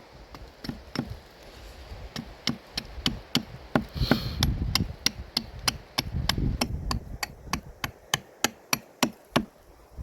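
Gränsfors Bruks Carpenter's Axe making quick, light hewing strokes into wood while roughing out a spoon blank, a sharp chop about three times a second.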